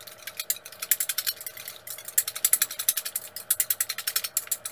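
Wire whisk beating eggs in a ceramic bowl, with rapid, even clicking as the wires strike the bowl on each stroke.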